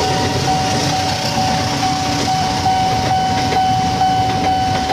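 A passenger train rolling past over a level crossing, its wheels and coaches rumbling steadily. The crossing's warning signal rings at the same time as a steady high tone with short regular breaks.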